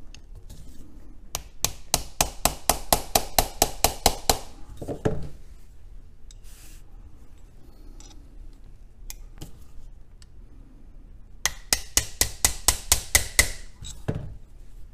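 Small ball-peen hammer lightly tapping a punch against the stator of a 1949 Emerson desk fan motor, about four sharp metallic taps a second, to drive the stator out of the motor housing. Two runs of taps, one early and one near the end, each followed by a duller knock.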